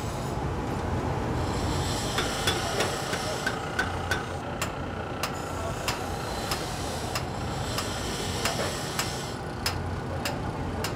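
Hand hammer striking red-hot iron on an anvil, a sharp ringing strike about every half second from about two seconds in, over a steady low rumble from the coal forge.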